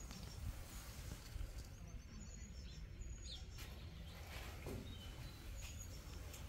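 Faint outdoor ambience: a steady low rumble with small birds chirping briefly a few times, high and short.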